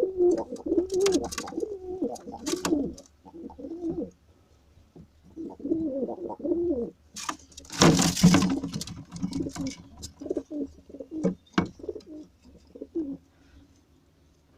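Pigeons cooing in repeated low, wavering bouts. A loud burst of noise comes just past the middle, and the cooing dies away near the end.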